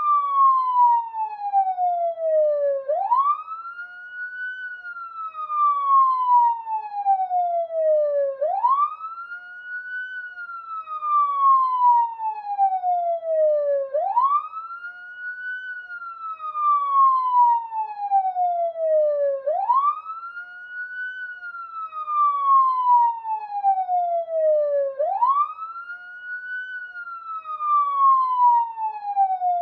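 Police siren sounding a slow wail. Each cycle, the pitch sweeps up quickly, then slides down over about four seconds, repeating about every five and a half seconds.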